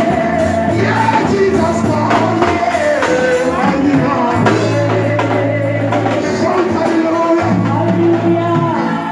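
Gospel music: a lead voice singing over a steady bass line and drums, with a tambourine.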